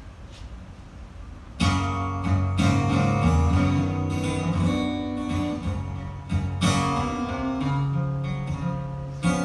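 Acoustic guitar playing a song's introduction: quiet at first, then strummed chords start abruptly about a second and a half in and ring on, with fresh strums later.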